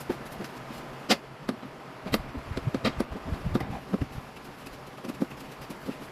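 Irregular sharp knocks and clicks of hard plastic and metal parts being handled and fitted while a window air conditioner is installed, with the loudest knocks about one and two seconds in.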